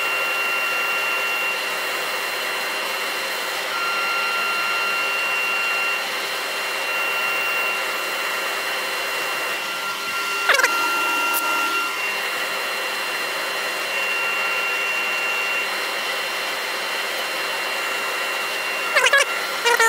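Workshop dust extractor running steadily together with a wood lathe turning at reduced speed, an even rushing noise with a steady whine, while abrasive is held to the spinning wooden bowl. A short falling squeak is heard about ten and a half seconds in.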